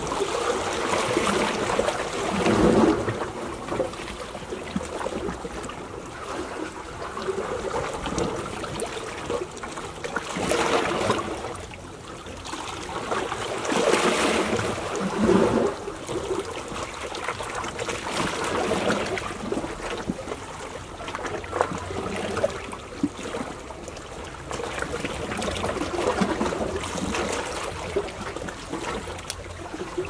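Small waves of a calm sea lapping and splashing against shoreline rocks, a steady wash that swells louder at uneven intervals of a few seconds.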